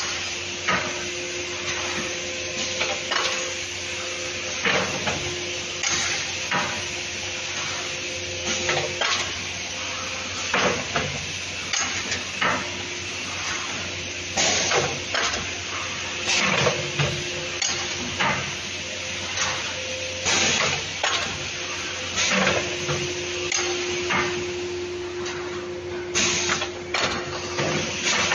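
Automatic cup filling and sealing machine running: a steady hum and hiss under repeated metallic clacks and knocks, about one a second, as the cup conveyor indexes and the sealing heads cycle.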